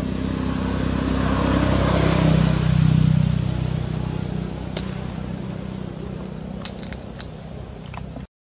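A motor vehicle passing by: a low engine hum that swells to its loudest two or three seconds in, then slowly fades. A few short, faint high clicks come later, and the sound cuts out briefly just before the end.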